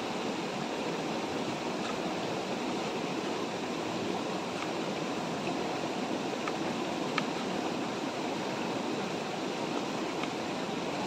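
River water rushing steadily, with a few faint, sparse taps of a knife on a plastic cutting board as an onion is diced; the sharpest tap comes about seven seconds in.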